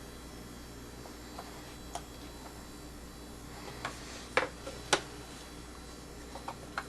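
Scattered light clicks and taps from trading cards and their packaging being handled and pulled out of a pack, the loudest two coming about four and a half and five seconds in, over a faint steady hum.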